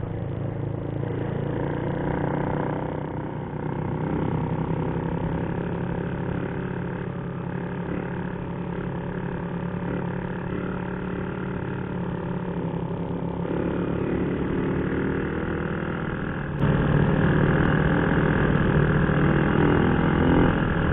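Motorcycle engine running steadily under way. About 17 seconds in it gets suddenly louder.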